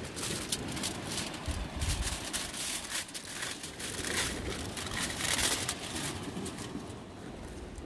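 Fish cooking on the fire, crackling and sizzling with irregular sharp pops.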